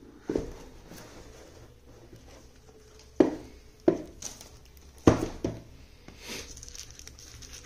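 The Insta360 X3's cardboard retail box being opened and handled on a wooden table. There is a knock about a third of a second in, then four sharper knocks and taps between about three and five and a half seconds, with light scuffing of cardboard between them.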